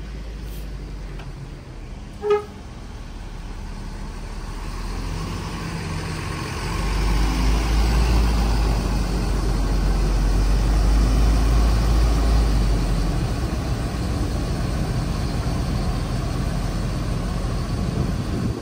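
Mercedes-Benz tour bus's diesel engine rumbling as the bus pulls away, growing louder from about five seconds in, with one short horn toot about two seconds in.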